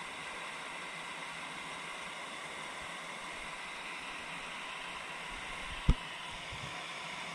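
Steady rush of river water spilling over a low concrete weir, with one short, loud low thump about six seconds in.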